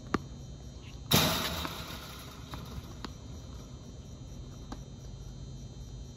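Tennis ball sounds: a sharp ball strike at the start, then a loud sudden crash about a second in that fades over about a second, followed by a few light knocks of the ball.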